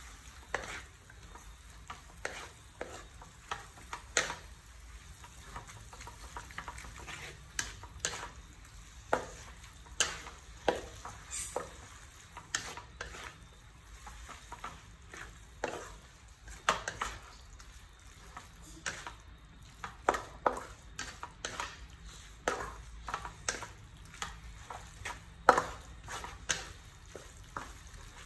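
Wooden spatula stirring and tossing noodles in a metal wok, knocking and scraping against the pan in irregular strokes, one to three a second, over a faint sizzle of the frying noodles.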